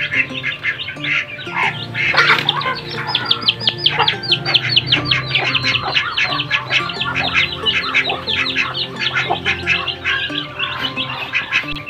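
Muscovy ducklings peeping while they feed: a fast, continuous run of short, falling peeps that thickens about three seconds in. Background music plays underneath.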